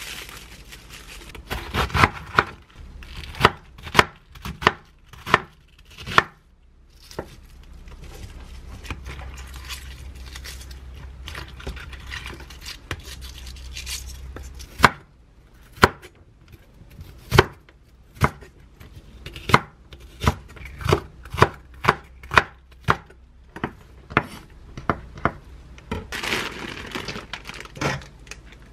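Kitchen knife chopping cabbage on a wooden cutting board: sharp single knocks, roughly one every half second to a second, in two runs. Between the runs and again near the end there is a stretch of steady hiss.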